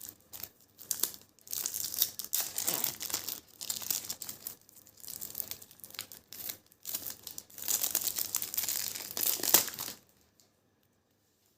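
Plastic wrapper of a trading-card pack crinkling and being torn open, in irregular bursts of rustling that stop near the end.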